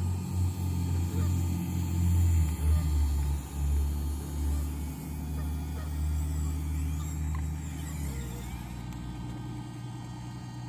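Motors and gearing of a radio-controlled Bruder CAT toy excavator running with a low hum, which eases off and changes about eight seconds in.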